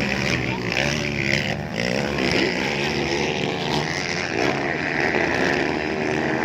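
Several motocross bikes' engines revving at once, their pitch rising and falling as the riders accelerate and back off.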